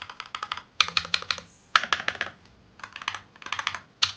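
Typing on an Amazon Basics Pro 65% mechanical keyboard fitted with red linear switches, which the reviewer says are of the CKT brand. The keystrokes come in quick bursts of clicks with short pauses between them. The switches are possibly unlubed, and the uploader assumes the board has no sound-dampening foam inside.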